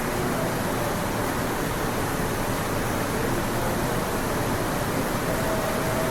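Steady background noise, an even hiss with no speech, with a faint brief tone near the end.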